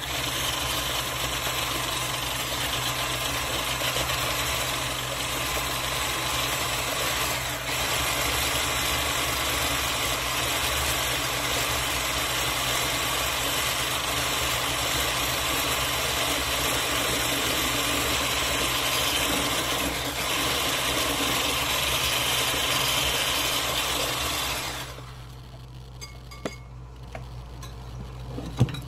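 Electric mixer running steadily as it beats cake batter in a glass bowl, then switched off near the end, followed by a few light knocks.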